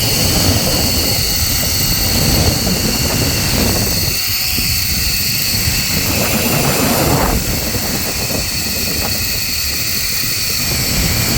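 Steady rushing noise of a zipline ride, with wind buffeting the microphone in an uneven low rumble.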